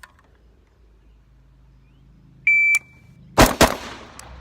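A shot timer's start beep, one steady high tone, then about a second later two AR-15 rifle shots fired in quick succession, about a quarter second apart, each crack trailing off in a brief echo.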